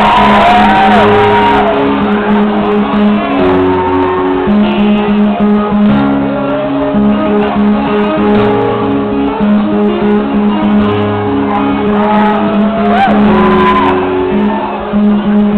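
Acoustic guitar played with two-handed tapping on the fretboard: a repeated low note sounds under shifting higher notes.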